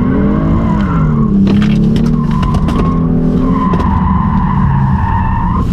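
Kia Stinger GT's 3.3-litre twin-turbo V6 pulling under power while its tyres squeal in a drift. The engine note rises and then drops within the first second and a half, and the squeal comes in waves, the longest near the end.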